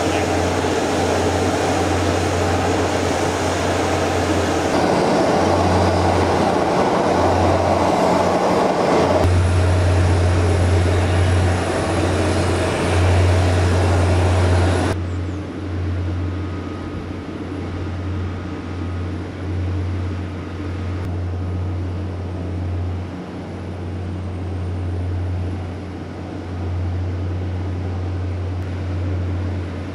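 Atlas V's mobile launch platform rolling on its rail track, a loud steady rumble and rattle. It drops abruptly about halfway through to a quieter, steady low rumble.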